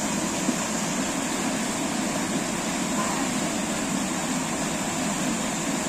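Small waterfall pouring into a rocky plunge pool: a steady rushing of falling water.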